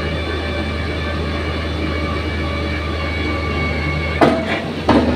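Excavator engine running steadily with a deep hum, and two sharp, loud clanks about four seconds in, less than a second apart.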